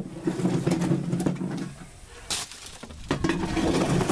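Tractor engine running at a steady idle. The hum breaks off for about a second in the middle, with one sharp click, then resumes.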